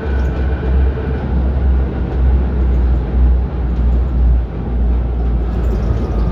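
A 1965 ASEA M28 tram running along the track, heard from inside the car: a steady, loud low rumble with a rushing running noise over it.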